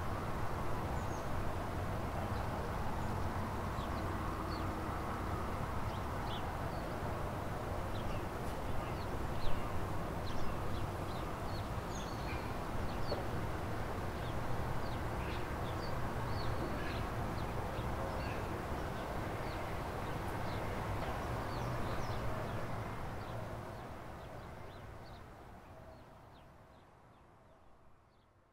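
Outdoor background noise with many short, high-pitched chirps scattered through it and a sharp knock about nine and a half seconds in. The sound fades out over the last few seconds.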